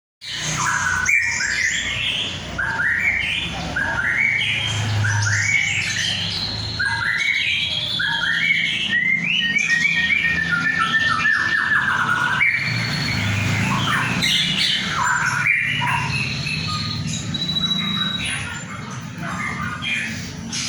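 Songbird calling and singing hard, with rapid rising chirps and harsh squawks, and a run of notes stepping down in pitch about ten seconds in.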